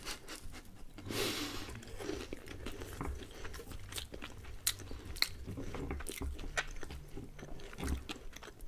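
Close-miked eating of homemade puff-pastry pizza: biting and chewing the crisp, flaky crust, with many scattered sharp crunches and a longer crunch about a second in.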